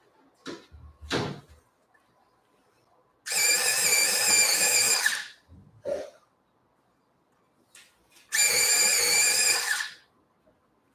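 Small electric motor of what is most likely an electric pencil sharpener, running in two bursts of about two seconds each with a steady whine, a few light knocks of handling before and between.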